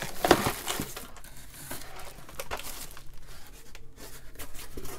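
Plastic packaging of electronic component bags crinkling and rustling as it is handled and lifted out of a cardboard shipping box, loudest about a third of a second in.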